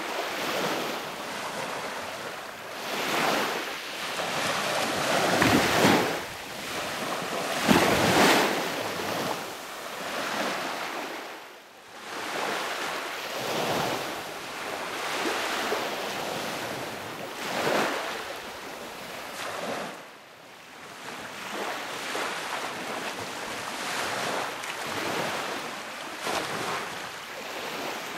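Sea waves breaking on the shore, the rush swelling and falling back every few seconds, loudest about six and eight seconds in, with wind buffeting the microphone.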